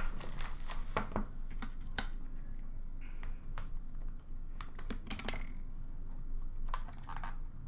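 Hockey trading cards and their packaging being handled: an irregular run of small clicks, taps and rustles as packs are opened and cards are slid and sorted.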